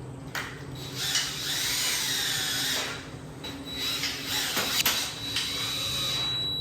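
Power drill driving screws in two runs: a whining motor that changes speed for about two seconds, a short pause, then a steadier whine for the rest, with a sharp click partway through.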